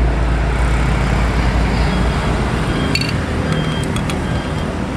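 Road traffic passing close by: a heavy vehicle's low rumble fades over the first two seconds, leaving a steady traffic noise. A few light clinks of tableware come about three to four seconds in.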